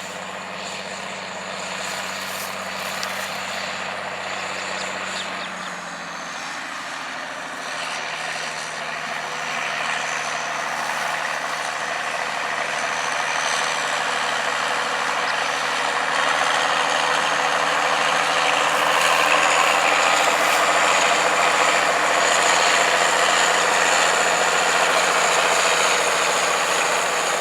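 Heavy diesel harvest machinery running in the field: steady engine noise with a thin high whine, growing louder through the middle and staying loud near the end.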